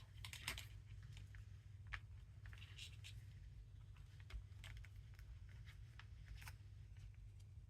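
Faint handling sounds: scattered soft rustles and light taps of paper and thread as the stitches of a hand-sewn book signature are pulled tight, over a low steady hum.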